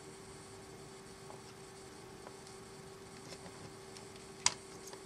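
Quiet workbench handling of small tools on a model locomotive's circuit board while its wires are being removed: a few faint ticks and one sharp click about four and a half seconds in, over a steady faint electrical hum.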